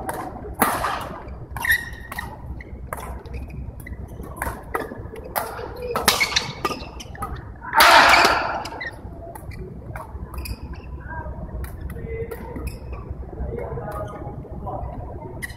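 Badminton rally: a string of sharp racket strikes on the shuttlecock, about one a second, with faint voices behind them and a louder burst of noise about eight seconds in.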